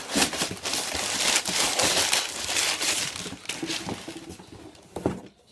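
Packaging crinkling loudly as a pair of paintball cleats is unwrapped by hand. It eases off after about three and a half seconds, and there is a single click near the end.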